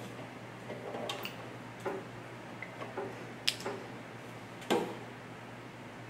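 A handful of light clicks and taps, the sharpest about three and a half and nearly five seconds in, as rubber plugs are worked out from underneath the silencer of a tankless gas water heater. A steady low hum runs underneath.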